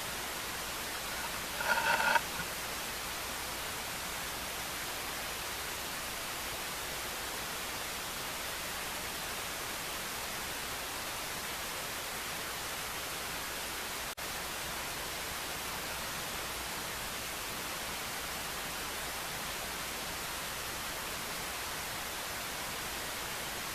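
Steady hiss throughout, with one brief pitched call or beep about two seconds in.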